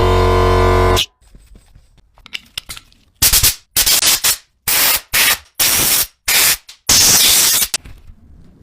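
A small power tool, such as a rotary tool or drill, runs at a steady pitch and stops about a second in. After a short pause come about seven loud, noisy bursts, each lasting well under a second.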